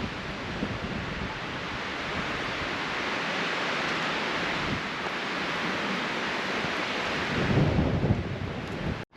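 Wind buffeting the camera microphone over a steady rush of wind, with uneven low rumbling gusts that swell near the end and then cut off abruptly.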